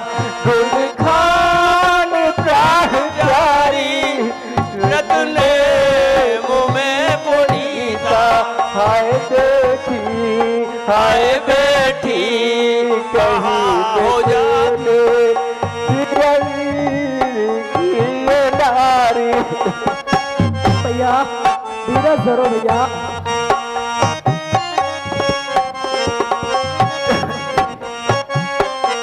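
Tabla drumming under a melody that wavers in pitch.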